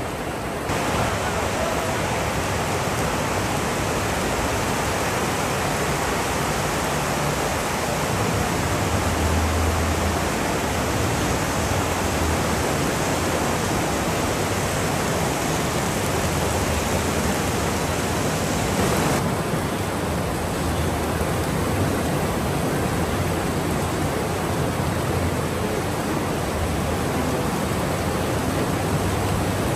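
Steady rain, a dense even hiss. Its highest part softens about two-thirds of the way through.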